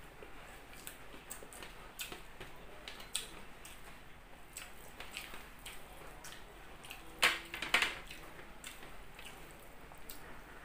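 Eating by hand: soft, wet clicks and smacks of chewing and of fingers mixing rice on a steel tray, with two louder smacks about seven seconds in.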